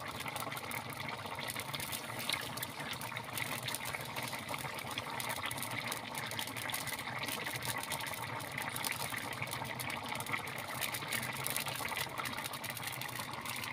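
Soupy vegetable curry bubbling steadily in a metal kadai over an open wood fire, a constant simmer full of small pops and crackles.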